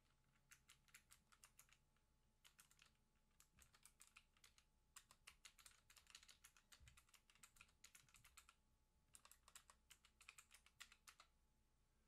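Faint typing on a computer keyboard: several bursts of rapid key clicks with short pauses between them.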